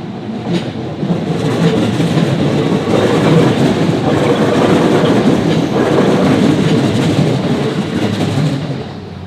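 A JR Sagami Line electric train passing close by, its wheel-on-rail noise building about a second in, staying loud, and fading near the end.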